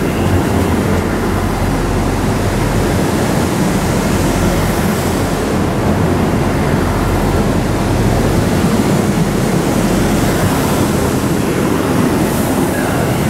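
VIAS Alstom Coradia LINT diesel multiple unit running along the platform past the listener: a steady mix of diesel engine drone and wheels rolling on the rails, with a low hum underneath.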